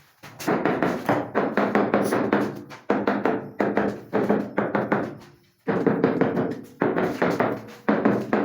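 Background music with a fast percussive beat over held tones, starting about half a second in.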